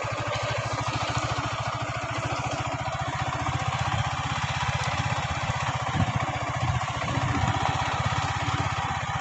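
Small motorcycle engine running steadily with a rapid, even low pulse.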